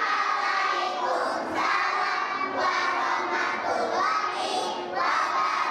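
A crowd of young children's voices, singing and calling out together.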